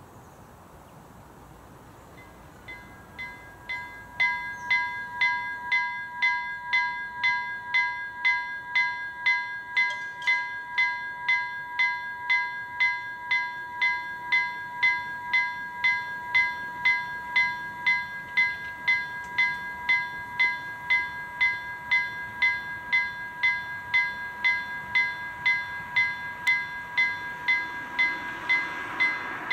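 Level-crossing warning bell fading in a couple of seconds in, then ringing steadily at about three strikes every two seconds as the barriers come down. Near the end a broad rushing sound swells beneath it as the train approaches.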